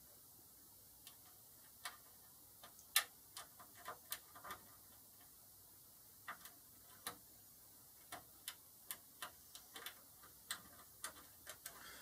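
Faint, irregular small metallic clicks and ticks of a hook pick working the pins inside a pin-tumbler door lock cylinder held under light turning tension, with one louder click about three seconds in.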